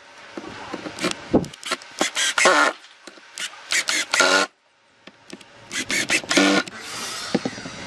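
Cordless impact driver driving long screws into a pine box, in about four short runs of a second or less with pauses between.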